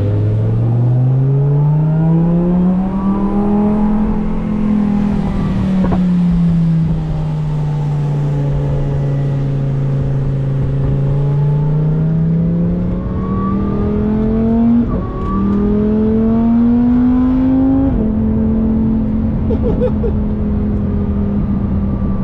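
Car engine pulling through the gears: its note climbs, eases off, climbs again, drops with quick upshifts about fifteen and eighteen seconds in, then holds steady at cruise.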